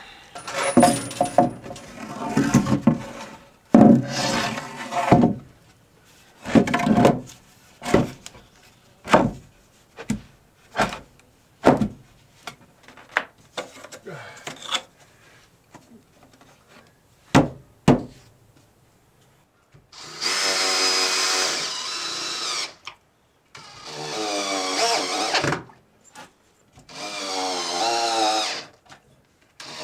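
A cordless drill driving screws up through pocket holes in a joist into a plywood subfloor, in three runs of a few seconds each in the last third. Before that come scattered knocks and thumps of the lumber being handled and set in place.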